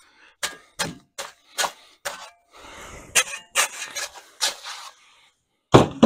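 Sharp scrapes and rustles of a paper bag of dry concrete mix being handled, then a heavy thump about a second before the end as the mix is dumped out into the form.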